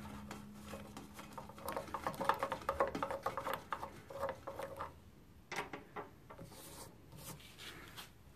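Rapid light clicking and rattling of hand work on small metal parts at a Jeep JK's windshield hinge, where the Torx bolts are being removed. It is densest in the first half, with a few separate clicks later, and a low hum fades out in the first two seconds.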